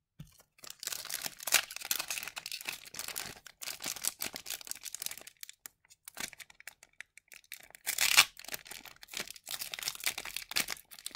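Hockey card packs being handled: a pack wrapper crinkling and tearing and cards rustling against each other in irregular bursts, with a louder burst about eight seconds in.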